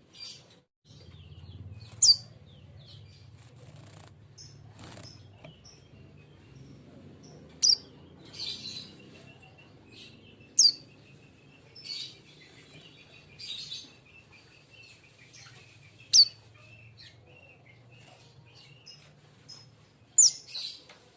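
A young, untrained king konin fledgling calling: short, sharp high chirps that drop in pitch, repeated every few seconds, with softer twittering in between.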